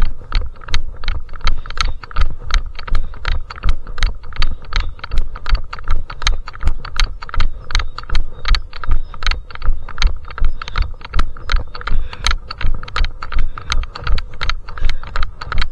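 A trail runner's running footsteps, an even beat of about three strides a second, each a low thud with a sharp clicking rattle from the jolted camera or gear.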